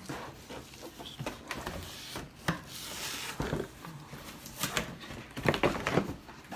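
Cardboard box and its packing scraping, rustling and knocking as a boxed Keurig coffee maker is worked out of the box lying on its back, with a cluster of louder knocks near the end.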